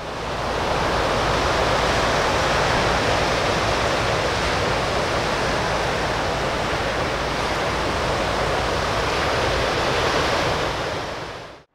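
Surf breaking on an ocean beach: a steady, loud wash of noise. It swells in over the first second and dies away at the very end.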